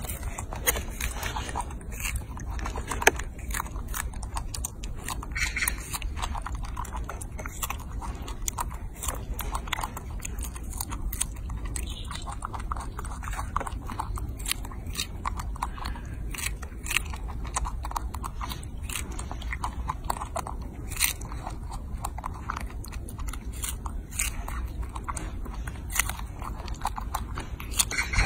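A baby monkey biting and chewing strawberries: a steady run of small irregular clicks and smacks, some sharper than others.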